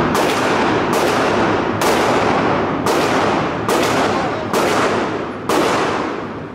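Gunshots on an indoor firing range: seven shots about a second apart, each with a long echo off the range walls.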